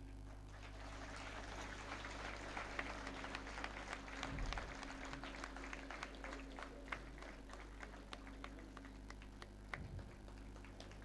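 Audience applauding: a dense patter of many hands clapping starts about half a second in, over a low steady electrical hum.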